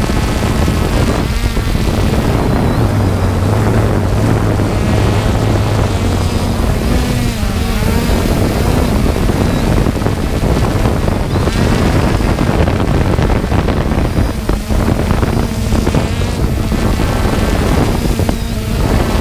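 3DR Solo quadcopter's motors and propellers running steadily, heard from the drone's own onboard camera, with a low hum that rises and falls in pitch as it manoeuvres. Wind buffets the microphone throughout.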